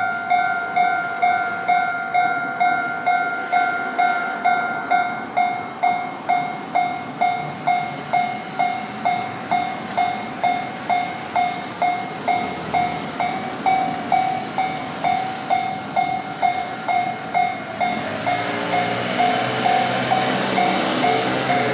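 Japanese railway level-crossing warning bell ringing in steady dings, about two a second. About eighteen seconds in, the noise of an approaching train rises beneath it.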